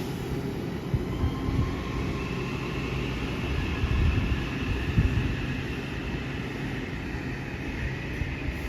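Amtrak Acela Express high-speed trainset running by with a steady low rumble of wheels on rails and a faint high whine, with a few louder knocks about one second in and again around four to five seconds in.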